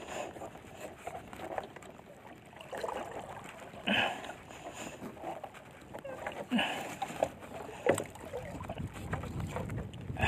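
Water splashing and slapping against the hull of a small wooden boat in choppy sea, in uneven bursts.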